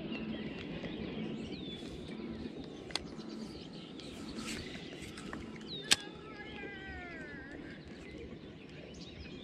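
Birds calling around a pond over a steady outdoor hiss, with a falling run of notes about seven seconds in. Two sharp clicks, about three and six seconds in, come as a spinning reel is handled.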